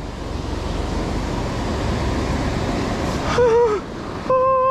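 Steady wash of breaking surf. Near the end a person's voice gives a short exclamation that falls in pitch, then holds a steady, slightly wavering hummed note.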